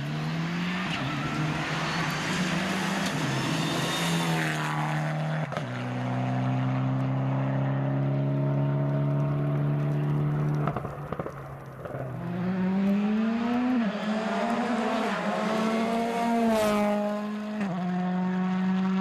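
Two rally cars, a Mitsubishi Lancer Evolution X and then a Ford Fiesta, passing in turn. Their turbocharged four-cylinder engines rev hard, and the pitch drops and climbs again at each gear change, with a short lull about eleven seconds in.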